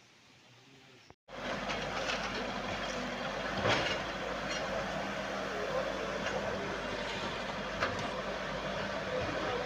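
Backhoe loader's diesel engine running steadily. It comes in abruptly about a second in after a quiet start, with a few sharp knocks over it.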